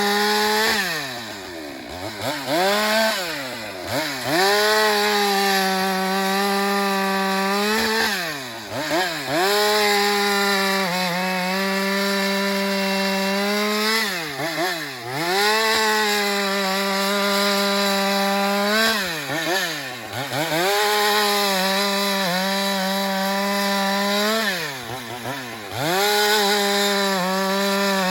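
Two-stroke Husqvarna 394 XP chainsaw running at high revs while cutting wood. About every five or six seconds the revs drop sharply and climb straight back up.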